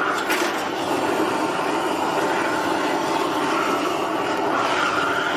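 Gas torch burner burning with a steady, loud rushing noise as it heats a copper cauldron for tinning, with a short click or scrape right at the start.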